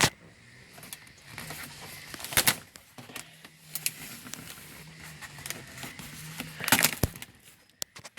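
Old dash pad on a 1966 Ford Mustang cracking and snapping as it is pried away from the metal dash, its foam stuck to the metal. A few sharp cracks and crunches, the loudest a couple of seconds in and again near the end.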